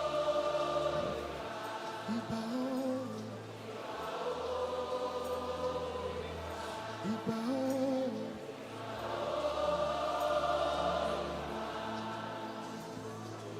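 Group worship singing: many voices hold long, slow sung phrases of a few seconds each, swelling and easing, over sustained instrumental accompaniment with steady low bass notes.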